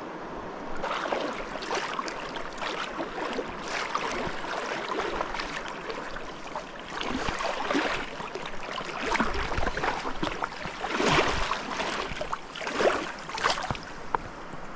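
Water rushing and splashing, with irregular louder surges.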